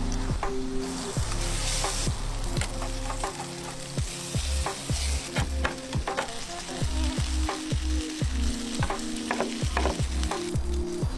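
Chicken frying and sizzling in a pan while being stirred, with many short crackles, over background music with a repeating bass line.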